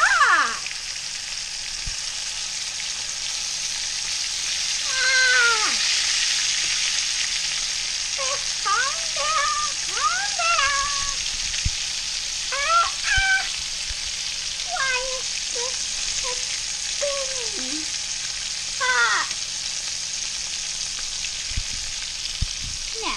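Breaded redfish pieces sizzling steadily in hot oil in a skillet, with a few faint knocks as tongs turn them. A series of short, high, wavering cries comes over the sizzle between about five and nineteen seconds in.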